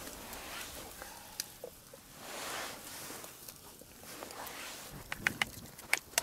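Rustling and handling noise while food is being put into a pot, then a quick run of sharp clicks and taps near the end.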